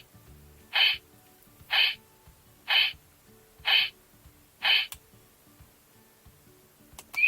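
Electronic sound effect from the CSM Kamen Rider Typhoon transformation belt's speaker: six short hoot-like tones about once a second, then a loud long tone starting at the very end.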